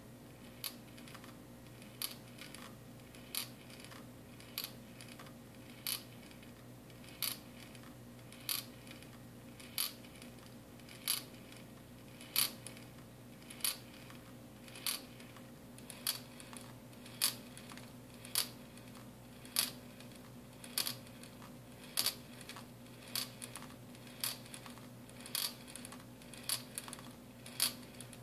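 Glass marbles rolling inside the rocking glass test tube of a running marble Stirling engine, clicking sharply against the glass at each tilt, about once every 1.2 seconds with now and then a weaker second click. The steady beat is the engine cycling on its own, driven by the flame at the hot end of the tube.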